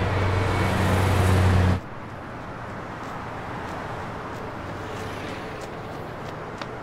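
City street traffic with the low, steady hum of a nearby vehicle engine. It cuts off abruptly about two seconds in and gives way to a quieter, steady wash of traffic noise.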